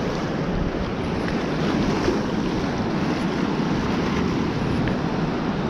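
High, fast river water rushing through a dam's open spillway gates: a steady rushing noise, with wind buffeting the microphone.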